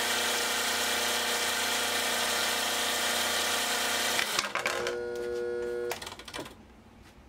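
Homemade plastic shredder running on its half-horsepower electric motor through a worm drive and chain, with a steady whine and hiss. About four seconds in, as a thick plastic bottle goes onto the cutters, the sound drops to a lower, steadier hum, and it cuts off about six seconds in: the shredder lacks the torque to cut the thick bottle.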